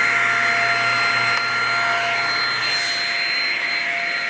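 Shark Rocket self-cleaning stick vacuum running steadily: a constant high motor whine over the hiss of its suction.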